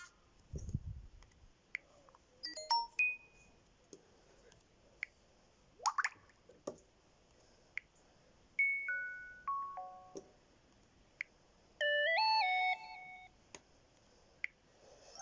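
LG Joy H220 phone playing a series of short electronic notification tones through its speaker. First comes a brief blip, then a quick upward sweep about six seconds in, then four notes stepping downward, and near the end a stepped multi-tone chime. Faint clicks fall between the tones.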